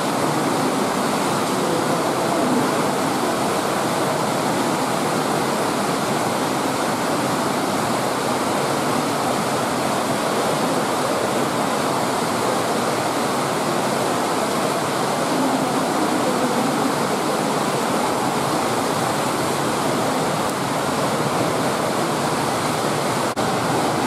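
Steady, even rush of running water in an otter pool, unbroken throughout.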